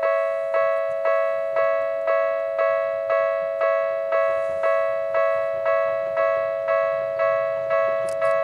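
Japanese electronic level-crossing warning bell in the Tokyu-style tone, striking about twice a second. Each strike is a bell-like ringing tone that fades before the next. A low rumble builds underneath it in the second half.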